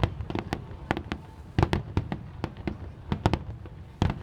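Fireworks bursting overhead: a rapid, irregular series of sharp bangs and cracks, some in quick clusters, over a continuous low rumble of explosions echoing.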